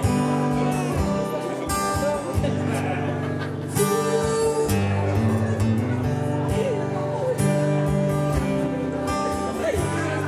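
Solo acoustic guitar playing strummed chords in a steady rhythm, amplified through the stage sound system.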